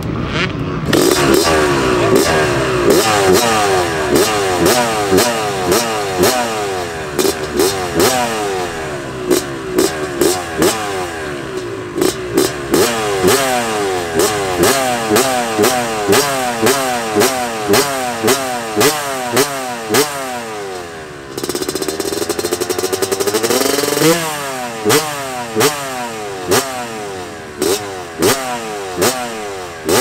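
Honda CR250R's 250cc two-stroke single-cylinder engine running and being revved again and again in quick throttle blips, its pitch climbing and dropping with each blip.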